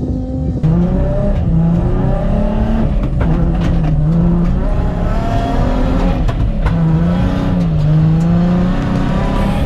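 Nissan 350Z drift car's engine under hard driving, its revs rising and falling again and again as it is driven on and off the throttle. It gets louder about half a second in.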